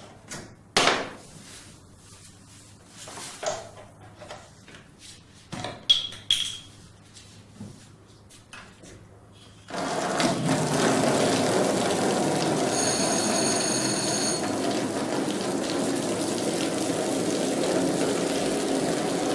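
Scattered light knocks and handling sounds, then about ten seconds in a shower tap is opened and water runs steadily onto a tiled floor and a plastic basin. A brief high-pitched whine comes a few seconds after the water starts.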